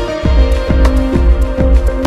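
Background music with a steady beat, about two strokes a second over a deep bass line and held notes.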